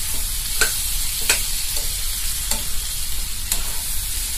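Raw mango pieces sizzling in hot ghee in a kadhai while a steel spatula stirs them, knocking against the pan a few times over a steady sizzle. The mango is being sautéed (bhuna) for a sweet mango pickle.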